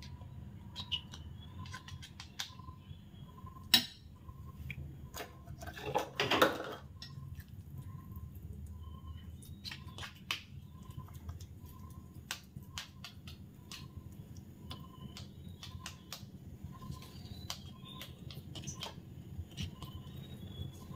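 Metal spoon scraping and tapping against small plastic cups as a grated cassava mixture is spooned in and pressed down: scattered soft clicks, one louder clack about four seconds in and a short scrape around six seconds. A faint regular pip sounds a little over once a second throughout.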